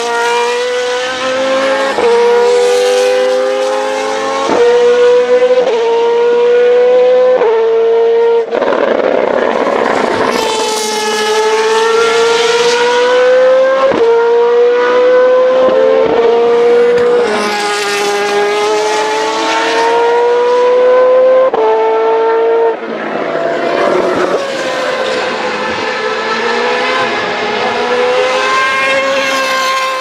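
Naturally aspirated V8 single-seater racing cars at full throttle on track. The engine note climbs and drops sharply over and over as the gears are shifted up, in quick steps at first and then in longer climbs of several seconds.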